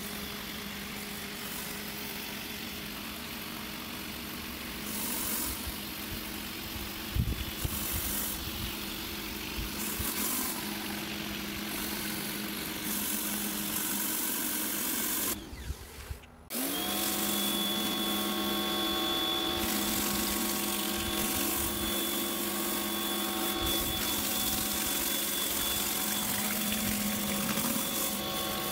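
Electric pressure washer running steadily, its spray hissing out from under a Sun Joe rotary surface cleaner pressed onto concrete. About halfway through the motor cuts out for about a second, then starts again with a short rising whine and settles back to its steady hum.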